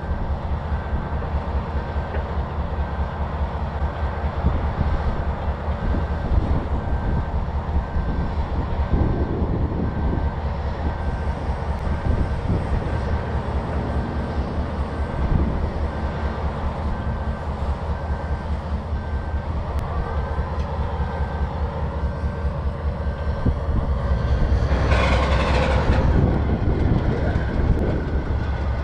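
Canadian Pacific double-stack container cars rolling past with a steady low rumble and wheel clatter. It grows louder toward the end, with a brief harsher burst of wheel noise near the end.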